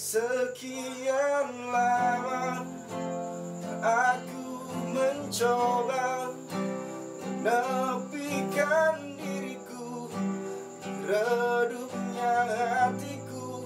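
Acoustic guitar played by hand with a man singing over it.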